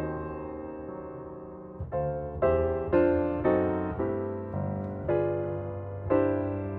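Soft piano background music: a chord rings and fades for about two seconds, then gentle notes and chords follow about every half second.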